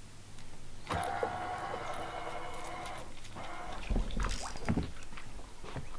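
Fishing reel's spool whirring for about two seconds as a lure is cast, followed by a few low knocks and a brief splash-like hiss.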